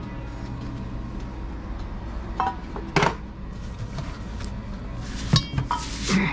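Metal clinks and clanks from a motorcycle rear wheel with a steel rear sprocket being handled and turned over on concrete. There are about five sharp knocks with a short ring, the loudest a little past halfway, over a steady low hum.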